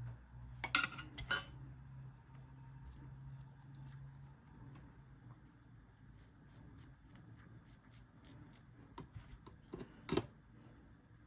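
Small sharp clicks and taps of lock parts being handled during a repair: a few louder clicks near the start and about ten seconds in, and a run of faint quick ticks in between. A low hum fades away over the first few seconds.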